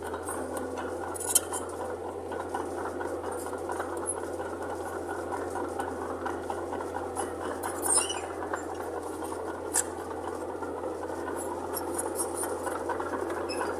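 Bulldozer engine running steadily, with a few short metallic clinks: one about a second in and two more later.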